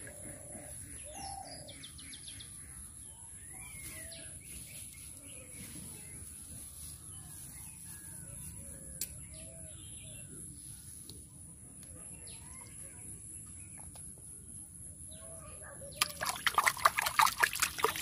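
Hand splashing and churning muddy water in a small hole in the ground, a rapid run of wet slaps starting near the end and far louder than the rest. Before that, birds chirp faintly in the background.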